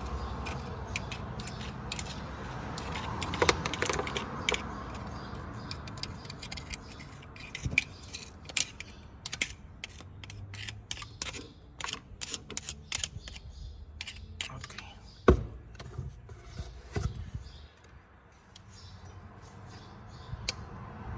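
Quick series of small metallic clicks, taps and clinks from hand tools and loose metal pieces being picked out around a manual transmission's clutch release bearing, which has fallen apart; the clicking is densest in the middle, with one sharper knock about fifteen seconds in.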